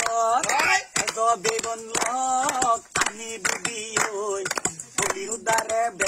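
A man singing, with notes held and bent, over sharp rhythmic taps about three a second.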